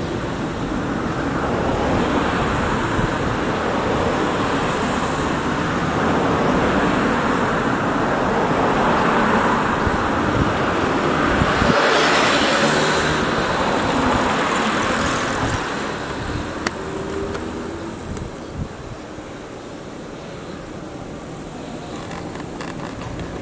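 Road traffic noise: motor vehicles running by, the sound swelling to a peak about halfway through and easing off.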